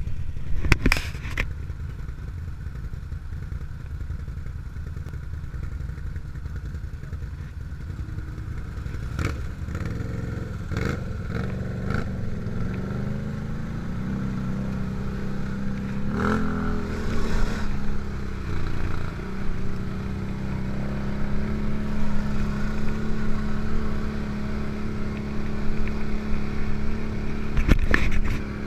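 ATV engine running steadily as it rides along a rough dirt trail. Its note rises about halfway through and then holds steady. Sharp clattering knocks come in here and there as the machine goes over bumps.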